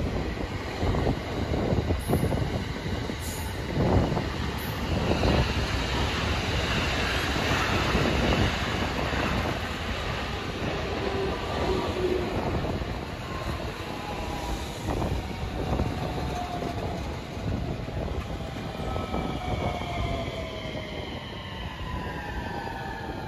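JR West electric commuter train running past close by, its wheels rumbling and knocking over the rail joints. Over the second half a motor whine rises steadily in pitch as the train gains speed.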